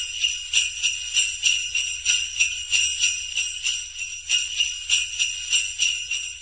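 Sleigh bells jingling, shaken in a steady rhythm of about three shakes a second.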